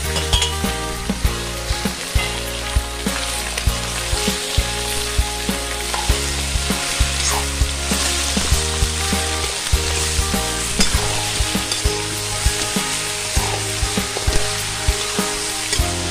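Raw duck meat sizzling as it fries in hot oil in a metal kadai, with frequent short clinks and scrapes of a metal spoon turning the pieces.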